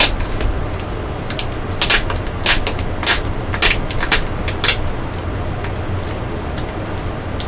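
Blu-ray box packaging being handled: a run of short, crisp clicks and rustles, about six of them between two and five seconds in, over a steady low hum.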